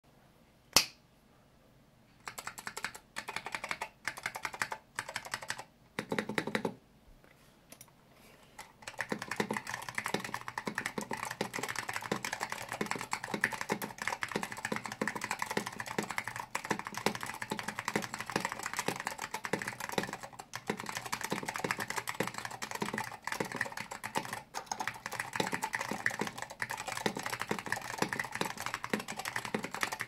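Typing on a 60% mechanical keyboard with tactile Salmon Alps switches lubed with RO59, in a solid walnut wood case with AEK keycaps: crisp, fairly high-pitched clacks rather than a deep thock. A single sharp click about a second in is the loudest sound. Short bursts of keypresses follow from about two to seven seconds, then steady continuous typing from about nine seconds on.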